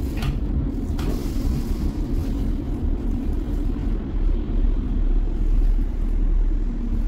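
Steady low rumble inside a light-rail tram car standing still, with a short click about a second in.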